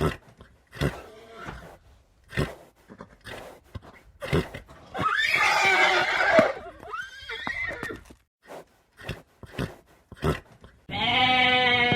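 A horse whinnying once, a loud rough call lasting about a second and a half, about five seconds in, among scattered short knocks. A steady pitched bleat starts near the end.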